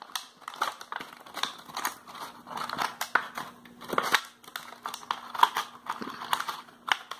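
Strips of a cut PET plastic bottle being bent and folded inward one by one by hand, giving irregular crinkling clicks and crackles of the thin plastic.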